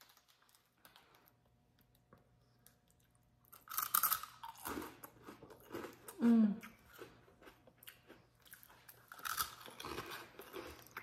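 Crunching and chewing of a freeze-dried sour gummy worm, starting about three and a half seconds in, in crisp bursts. A brief hum of the voice comes about six seconds in.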